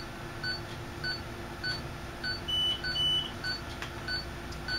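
Operating-room patient monitor beeping a steady pulse tone, short even beeps about one and a half a second, keeping time with the heartbeat. About halfway through, two longer, higher beeps sound on top of it.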